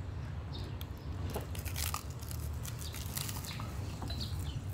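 Biting into a flaky, sugar-coated pastry: a scatter of small crisp crunches and crackles, over a steady low hum.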